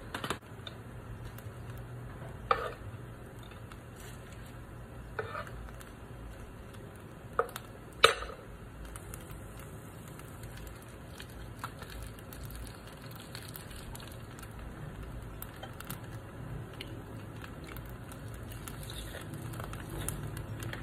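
Dried seaweed sheets crinkling and crackling in the hands as they are wrapped around pieces of crispy waffle-pressed rice, with a few sharp crackles, the loudest about eight seconds in.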